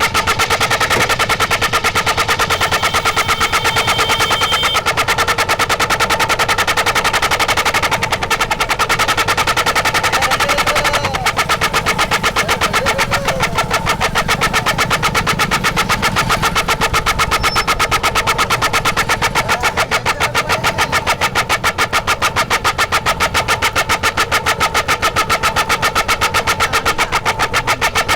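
Royal Enfield Bullet's single-cylinder exhaust blowing through a bundle of toy horns tied to the tailpipe: a rapid, even stutter of exhaust pulses, about eight a second, carrying several steady horn tones at once.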